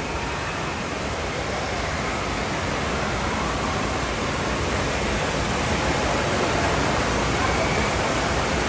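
Steady rush of running and falling water at an indoor water park, growing slightly louder.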